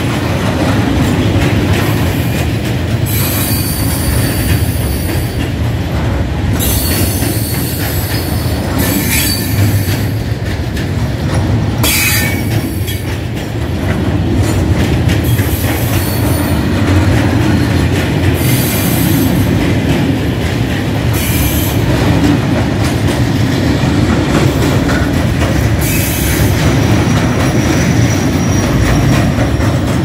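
Loaded grain freight wagons rolling past on the rails with a steady low rumble, broken every few seconds by short bursts of high-pitched wheel squeal.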